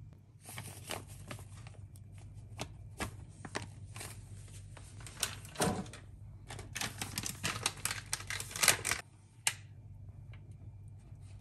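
Rapid, irregular clicking and rattling from a spice container as ground paprika is shaken out onto raw goat meat in a glass bowl. The clicks are densest and loudest in the second half and stop about nine and a half seconds in, over a low steady hum.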